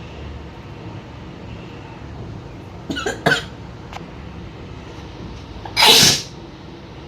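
A person sneezing: two short sharp catches about three seconds in, then one loud sneeze near the end.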